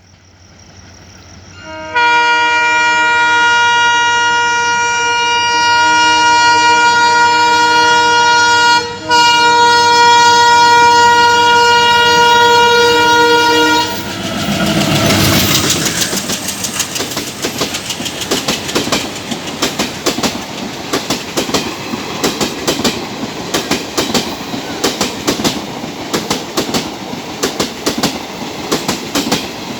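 Express train's horn sounded in a long chord-like blast of about twelve seconds, broken briefly near its middle, as the train closes in. Then the train goes past at speed: a loud surge of noise followed by a rapid, steady clickety-clack of wheels over rail joints.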